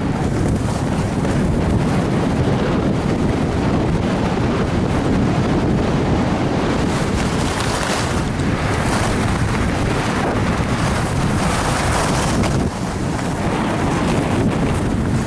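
Heavy, steady wind rushing and buffeting over an action camera's microphone while skiing downhill at about 50 to 65 km/h, dipping briefly near the end.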